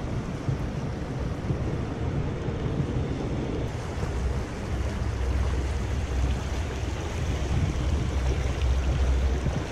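Shallow river riffle flowing steadily over stones, a constant wash of water, with a low rumble that grows stronger from about four seconds in.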